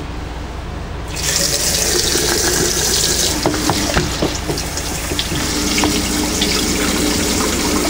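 Water running from a kitchen tap into a container, starting about a second in and then running steadily.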